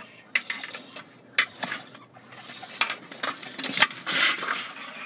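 Sharp metallic clinks and knocks, spaced irregularly, then a stretch of scraping about three and a half seconds in.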